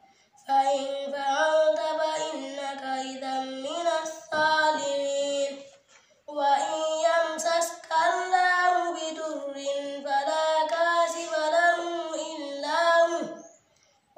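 A child reciting the Quran in Arabic in a slow, melodic chant with long held notes, pausing for breath about six seconds in and again near the end.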